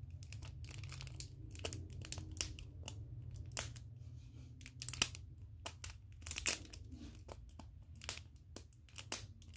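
The plastic wrapping of an L.O.L. Surprise ball being peeled and torn off a layer at a time, with irregular crinkles and crackles over a low steady hum.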